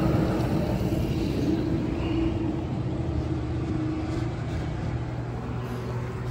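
Gas pump dispensing fuel into a motorcycle's tank: a steady hum with rushing flow, which changes about four to five seconds in to a lower steady hum.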